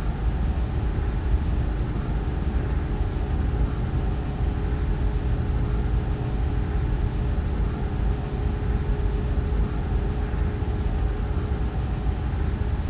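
A steady low rumble with a few faint held tones above it, unchanging throughout.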